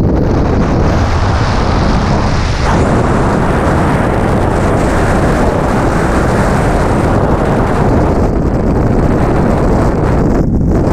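Loud, steady freefall wind rushing over the camera's microphone as the skydiver falls.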